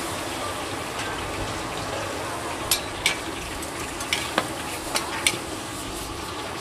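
Cabbage, carrot and meat stir-frying in a large metal wok: a steady sizzle, with about six sharp clanks of metal spatulas striking the wok in the middle of it.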